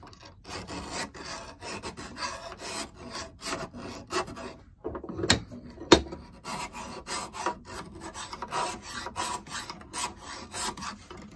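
Double-cut hand file rasping in repeated strokes across the cast iron of a bench plane's casting, taking metal off so a thicker replacement iron will fit. The strokes pause briefly a little before halfway, and a sharp knock comes about six seconds in before the filing resumes.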